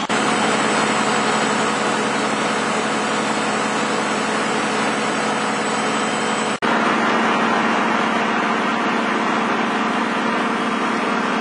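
Excavator engine running steadily at idle, with a momentary break in the sound a little past halfway through.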